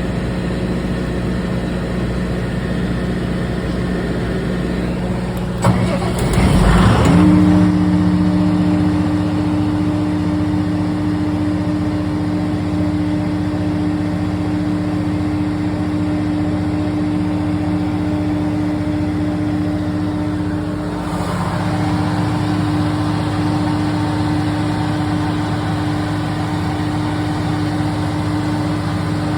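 Generator engine kicking in about six seconds in with a sharp click and a short rising spin-up, then running steadily at speed over a steady hum that was there before. It starts when the loose control-wiring connections are wiggled, a sign of the intermittent connection fault behind the no-start.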